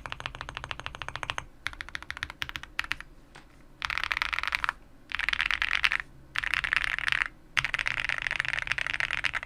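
Mr. Suit mechanical keyboard with lubed and filmed Zaku switches on a POM plate being typed on. It opens with fast, even typing, then a few scattered keystrokes, then four bursts of very rapid keypresses, each about a second long with short pauses between.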